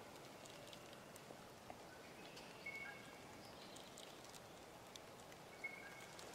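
Near silence with a few faint, short bird chirps and tiny ticks.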